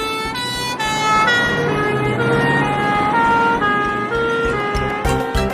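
Fire ladder truck siren: a two-tone hi-lo wail switching about twice a second, then stepping between several pitches over a low engine rumble. Rhythmic music starts near the end.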